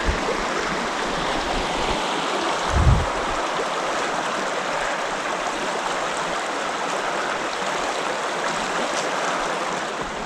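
River water flowing steadily over rocks, an even rushing noise, with a short low bump about three seconds in.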